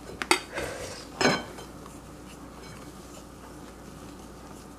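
Spatula folding whipped egg whites into a yolk cream in a glass mixing bowl. A few sharp knocks of the spatula against the glass come in the first second and a half, then quieter stirring.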